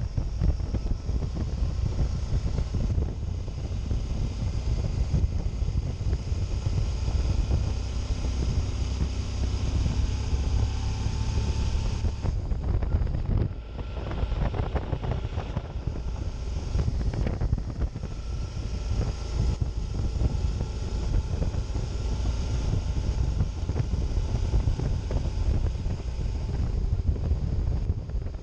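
Heavy wind noise buffeting the camera microphone on a moving Suzuki DL650 V-Strom, with the bike's V-twin engine running underneath, its pitch rising and falling with the throttle. A brief lull comes about halfway through.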